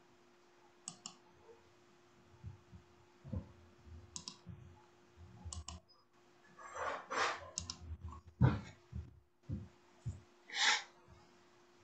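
Scattered faint clicks and soft low knocks over a steady faint hum, with a few louder, longer noises in the second half, the loudest about two-thirds of the way through.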